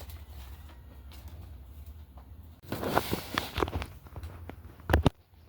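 Rustling and knocking of small objects being handled, with a sharp double knock about five seconds in. Under it runs a low steady hum that cuts off right after the knock.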